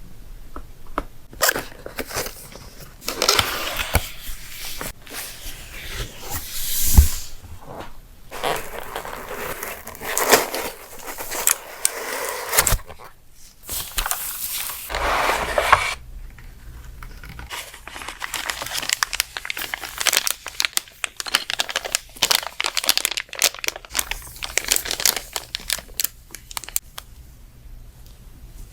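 Packaging of an Anne Pro 2 keyboard being torn open and crinkled in a series of swells, followed from about halfway on by a long run of rapid, sharp clicks and taps.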